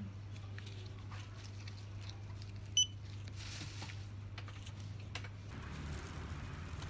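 A single short electronic beep from a shop checkout counter about three seconds in, over a steady low hum. A plastic carrier bag rustles just after it, and near the end the background changes to an open-air hiss.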